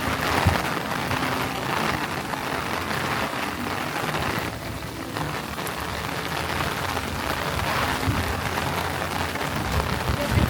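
Heavy rain pouring down in a steady downpour, easing briefly about four and a half seconds in before picking up again.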